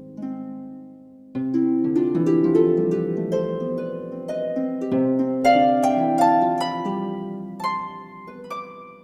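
Background music of plucked harp notes, chords and runs ringing and fading, with no beat.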